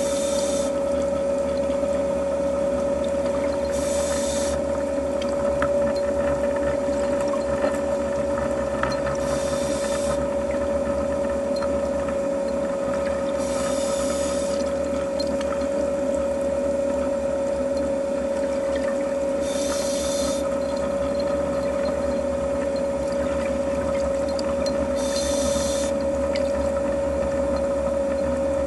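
Underwater recording: a steady hum with one constant mid-pitched tone, broken about every five to six seconds by a short hiss, the rhythm of a scuba diver breathing through a regulator.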